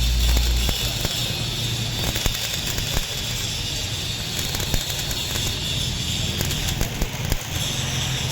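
Stick arc welding on a truck chassis: a steady crackling hiss with many scattered sharp pops. A low hum is heard only in the first second.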